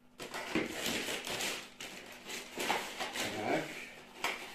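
Rustling of packaging with light taps and knocks as new van mirrors are handled and unwrapped from a parts box.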